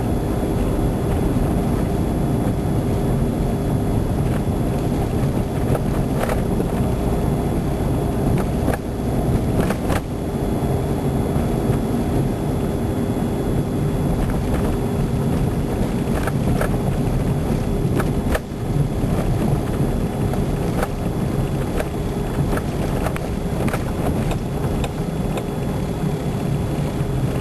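A car driving, heard from inside the cabin: a steady low rumble of engine and tyres, with scattered light clicks and knocks.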